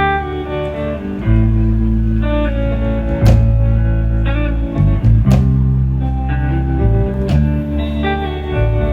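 Instrumental intro of a blues-rock song: electric guitar and bass playing sustained notes, with a sharp drum or cymbal hit about every two seconds.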